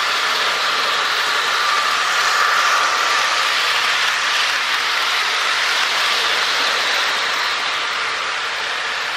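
HO scale Mantua and Bachmann model trains running on plastic track: a steady whir of the locomotive motors and wheels rolling on the rails, loudest a couple of seconds in as a train passes close by.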